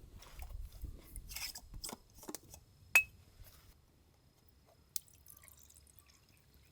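Soft handling and rustling noises, then a sharp clink with a brief ring about three seconds in and a lighter tick about two seconds later.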